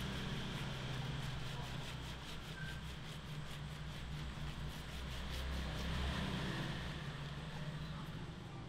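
Hands scrubbing shampoo lather through wet hair: a soft, repeated rubbing and squishing of foam, over a steady low hum.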